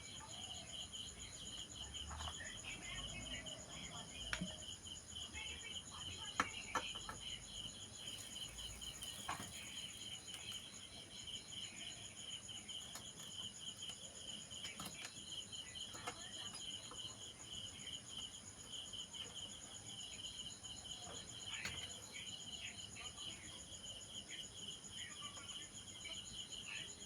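Insects trilling steadily, a high fast-pulsing buzz, with scattered light clicks and a few small knocks.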